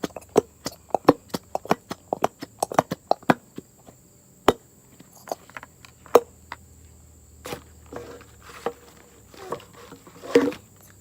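A quick run of sharp taps, about four a second for the first three and a half seconds, then a few scattered taps and a louder cluster near the end.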